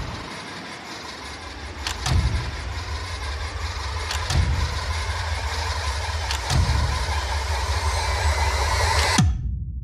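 Horror-trailer sound design: a dense, rumbling drone that builds in loudness, punctuated by a heavy booming hit about every two seconds. It cuts off suddenly with a short falling swoop near the end.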